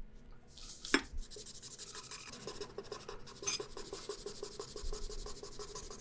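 Pen scratching rapidly across paper in quick short strokes, writing or scribbling, with one sharp click about a second in.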